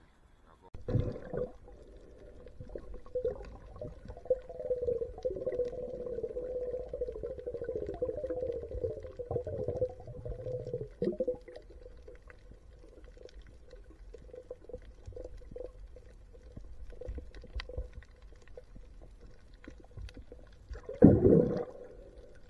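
Muffled underwater sound from a camera beneath the surface: water sloshing and gurgling as a spearfisher swims, over a steady hum. A louder muffled surge comes about a second in and again near the end.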